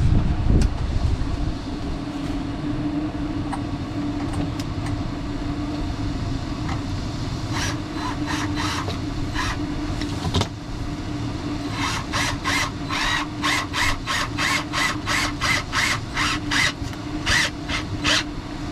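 Hand saw cutting a wooden board: a few strokes around the middle, then steady back-and-forth strokes about two a second near the end. A steady low hum runs underneath.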